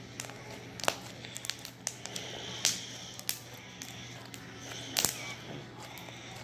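Homemade slime being squeezed and stretched in the hands, giving off irregular sticky pops and crackles.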